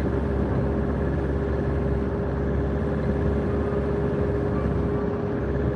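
Steady road and engine noise inside a moving car's cabin on an expressway, with a faint steady hum running through it.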